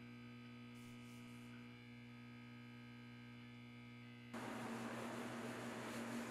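Steady electrical mains hum in a quiet room. About four seconds in, a louder hiss of room noise joins it.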